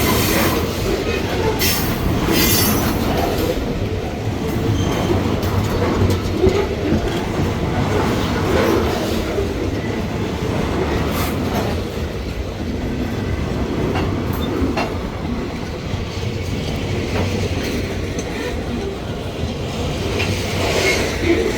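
Freight train wagons rolling past on the rails: a steady rumble of wheels on track, with scattered sharp clicks as wheels cross rail joints.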